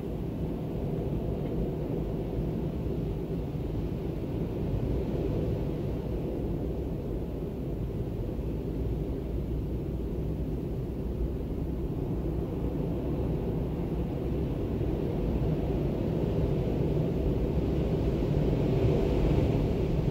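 Howling storm wind blowing steadily, mostly low in pitch, swelling in a stronger gust near the end.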